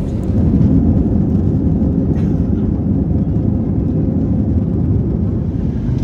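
Steady low rumble of an airliner in flight, engine and airflow noise heard inside the cabin.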